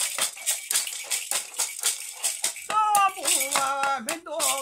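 A hand-held rattle shaken in a steady beat, about four or five shakes a second. A bit more than halfway through, a man starts chanting over it on long held notes.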